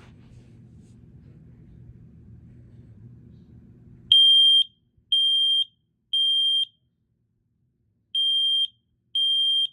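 Smoke alarm sounding on test, starting about four seconds in: loud, high-pitched beeps in the three-beep temporal pattern, three beeps, a pause, then two more. Before it, a faint low hum.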